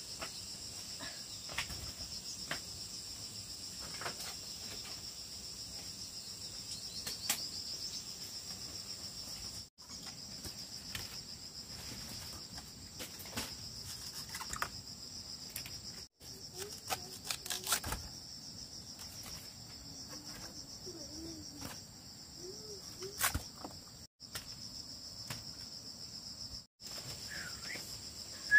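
Steady, high insect chorus, with scattered small clicks and knocks over it; it breaks off for an instant four times.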